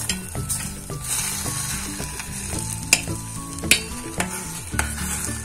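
Spoon stirring thick semolina halva in a stainless steel pot, scraping through it and knocking against the pot several times. Under it is the sizzle of the halva cooking on the heat as it takes up the last of its milk syrup.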